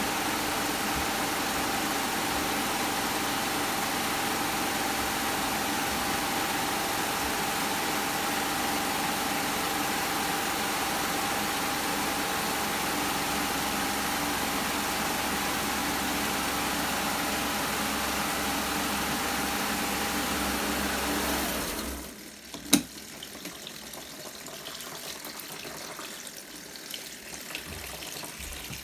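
Costway mini twin-tub washing machine's spin dryer running with a steady hum and a constant whine, winding down quickly about 22 seconds in. A single sharp click follows a moment later.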